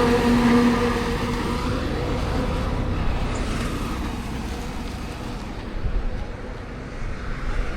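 Truck carrying gas tanks passing on a highway, its engine and tyre noise fading as it moves away.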